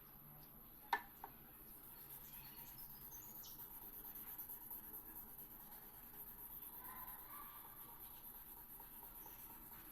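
Faint scratching or rubbing, with a sharp click about a second in and a smaller click just after.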